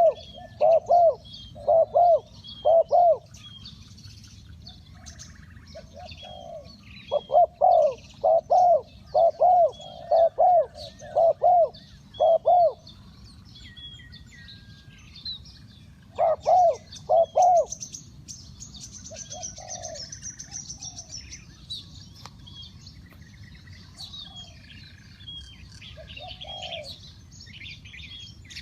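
Spotted dove cooing in runs of loud, evenly repeated notes: several at the start, a longer run about a third of the way in, and a short one past the middle, with fainter coos later. Small birds chirp thinly in the background throughout.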